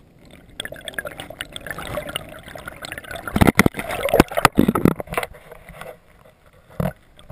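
Shallow seawater sloshing and gurgling right at an underwater microphone, with a run of loud, irregular splashes and knocks from about three to five seconds in, then a short lull and one more splash near the end.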